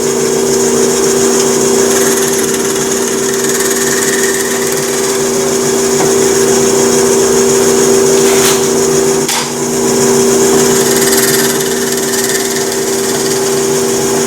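Delta 18-900L 18-inch drill press running at a faster belt speed: a steady motor and belt hum, with a couple of brief clicks about halfway through.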